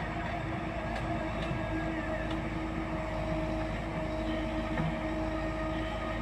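JCB backhoe loader's diesel engine running steadily under load, with a held hydraulic whine as the arm digs.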